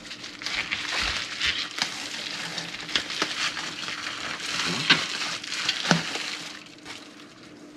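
Bubble wrap and plastic packaging rustling and crinkling as it is pulled off by hand, with a few sharp clicks; it dies down near the end.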